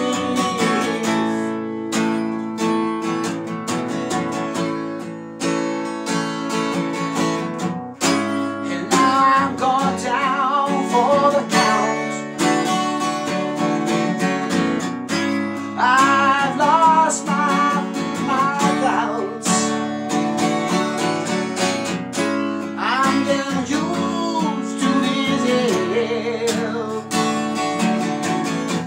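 Acoustic guitar strummed steadily, joined about nine seconds in by a harmonica in a neck rack playing a solo with bent notes.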